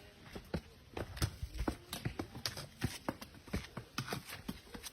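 Hikers' footsteps on a rocky, leaf-covered trail: irregular crunching and scuffing footfalls, about two or three a second.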